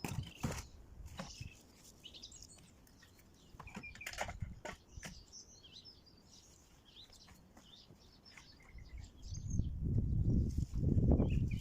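Small birds chirping intermittently outdoors, with a few sharp knocks in the first few seconds. From about nine seconds in, a louder low rumbling noise comes in and covers the birds.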